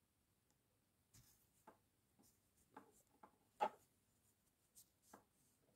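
Near silence with a handful of faint, short clicks and rubs from a crochet hook working cotton thread, the loudest about three and a half seconds in.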